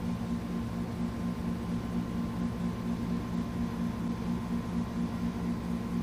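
A steady low mechanical hum that pulses in an even rhythm, with a faint steady high tone over it.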